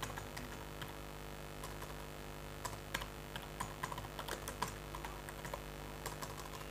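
Computer keyboard keys tapped in short irregular runs as text is typed, faint, over a steady low hum.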